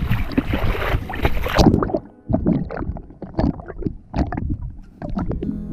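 Water rushing and splashing against a camera held at the sea surface as it moves along, cut off abruptly about 1.7 seconds in as the camera dips under. After that come muffled underwater gurgling and knocks.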